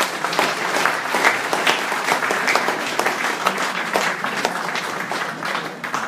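Audience applauding: many hands clapping together in a dense, steady patter.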